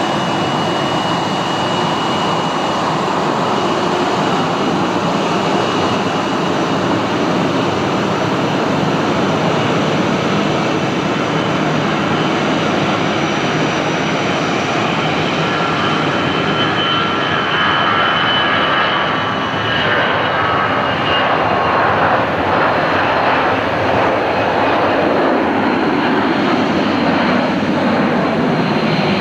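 Airbus A321's twin jet engines at takeoff thrust through the takeoff roll and liftoff: a loud, steady roar with a thin high whine over it. Around the middle, as the jet passes closest, a cluster of whining tones rises above the roar.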